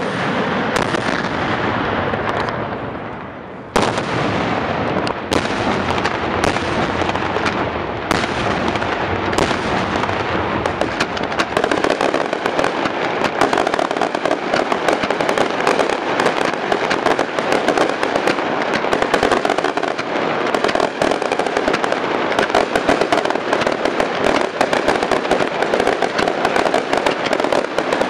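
Daytime fireworks barrage: a dense, unbroken crackle of firecrackers and bangs. About three seconds in it fades briefly, a sharp blast restarts it, and then a nonstop rapid rattle of reports follows.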